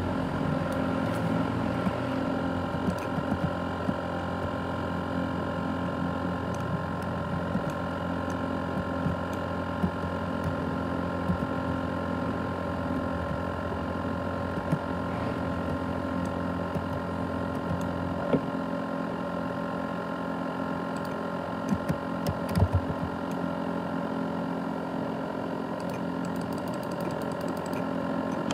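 ASUS X543UA laptop's cooling fan running loud and steady, a whirring hum with several steady whining tones, with scattered faint clicks. The owner likens this noise to a jet engine and takes it as a sign that the laptop is broken down.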